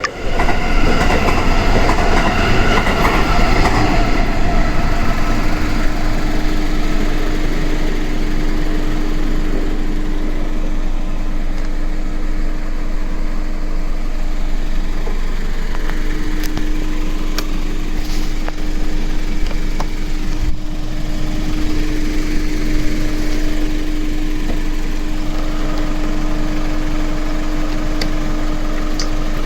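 Suzuki Let's 4 scooter's 50cc four-stroke engine running with a loud abnormal mechanical noise. A dense rattling mix of tones fills the first few seconds, then a steady droning tone holds over a continuous rumble.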